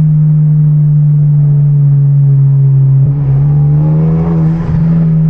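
Loud aftermarket exhaust of a manual, turbocharged Hyundai Genesis Coupe, droning steadily at cruise, heard from inside the car with the windows down. The note wavers briefly about three seconds in and again shortly before the end.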